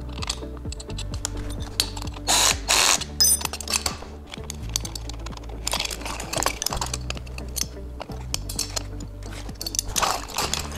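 Ratchet wrench clicking in short bursts as the nuts on a metal tripod jack stand's legs are tightened, with clinks of the metal legs being moved, over steady background music. The loudest bursts come about two to three seconds in.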